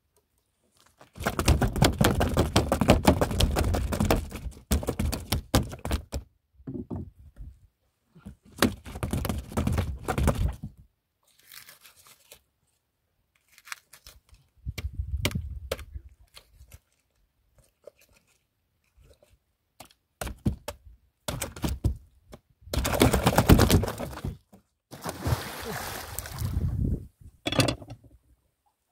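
A freshly caught yellowfin tuna knocking against the wooden planks of a small boat as it thrashes and is worked down into the hold. The sound comes in about six bursts of rapid thumping, each lasting a few seconds, with short quiet gaps between them.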